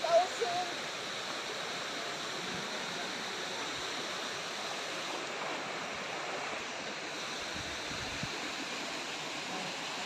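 Waterfall rushing steadily, an even wash of water noise.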